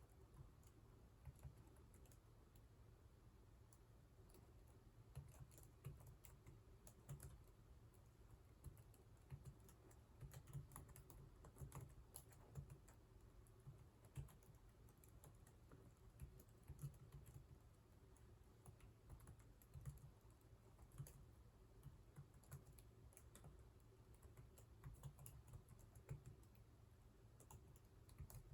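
Faint computer-keyboard keystrokes at an uneven pace, someone touch-typing through a typing practice test.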